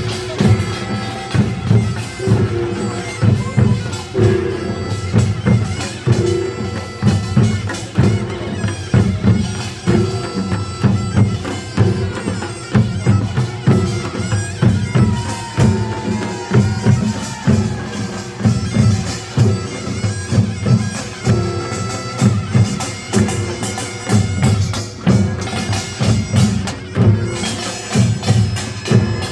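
Korean nongak (farmers' band music) in the Gyeongsang style: drums and gongs beat a steady, driving rhythm of about two strokes a second, with a reedy taepyeongso shawm playing a melody over it.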